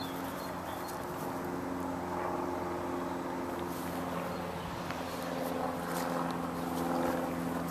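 Steady engine drone: a low hum with several fixed tones that holds through and swells slightly near the end.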